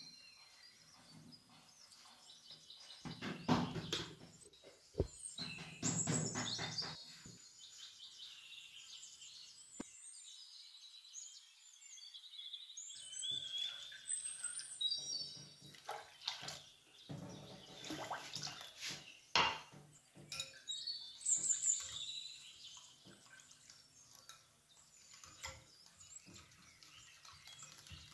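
Small birds chirping again and again, over intermittent kitchen sounds of dry semolina and then water being poured into a glass bowl and the batter being stirred with a wire whisk.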